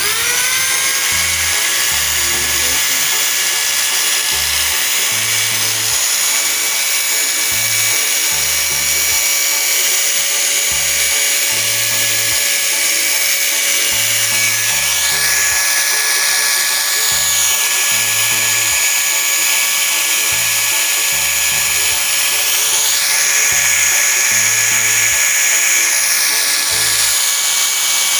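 DCA 710 W angle grinder, housing open, spinning up as it is switched on and then running at steady speed with a steady whine. It is a test run after repairing a grinder whose rotation kept cutting in and out.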